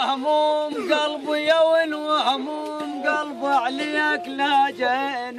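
A man chanting an Iraqi hosa verse in a raised, drawn-out voice: long held notes that bend in pitch, breaking about once a second.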